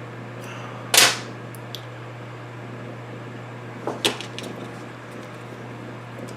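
Two bursts of knocks on the workbench: a sharp clack about a second in, then a couple of smaller knocks and clicks about four seconds in, over a steady low hum.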